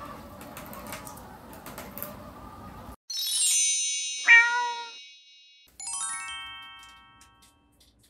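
A robot mop's motor whirs steadily as it runs, with a few light clicks, then stops abruptly about three seconds in. A bright sparkling chime flourish follows, then a short, loud meow, then a second run of falling chime notes that fades away: a short intro jingle with a cat sound.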